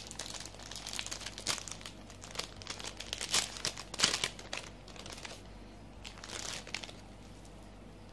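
Crinkly packaging rustling and crackling as it is handled, in irregular bursts that stop about seven seconds in.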